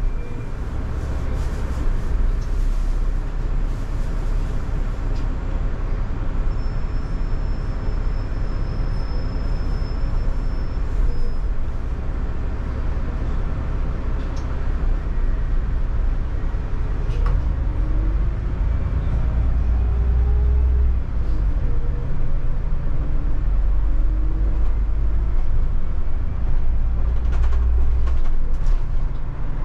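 City bus riding along, heard from inside the passenger cabin: a steady low engine and road rumble, with a whine that rises in pitch several times in the second half, and a few light rattles and clicks.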